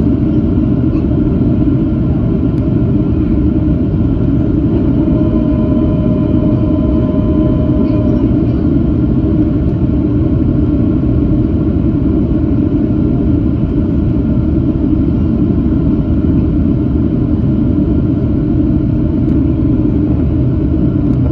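Steady cabin noise inside a Boeing 757-300 on approach: the loud, even rumble of its jet engines and airflow past the fuselage. A faint steady tone joins in for about three seconds a quarter of the way through.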